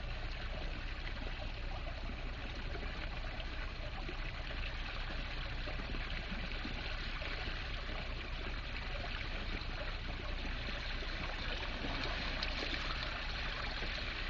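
Water from a toilet-built garden water feature trickling and splashing steadily, without a break.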